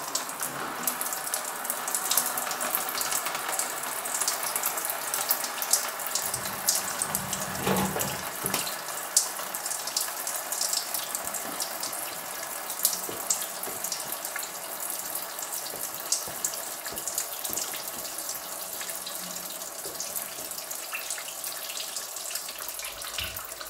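Automatic transmission fluid running in several thin streams off the edge of a loosened transmission pan into a drain tub, a steady pouring with a patter of small splashes. The fluid is now running freely rather than dripping, as the pan bolts are eased off.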